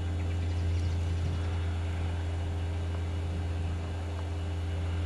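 A steady low drone with a faint, even higher hum over it, unchanging throughout, with no distinct events.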